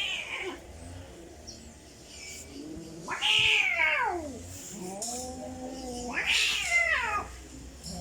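Male cats yowling in a territorial standoff: long, wavering caterwauls. The two loudest, about three and six seconds in, start high and slide down in pitch, with lower drawn-out moans between them.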